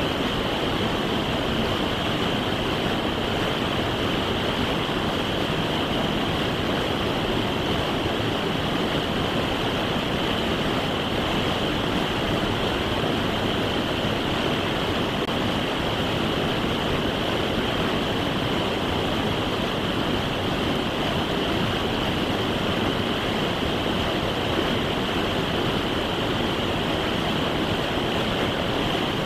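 Fast-flowing creek rushing over rocks through whitewater rapids: a steady, even rush of water.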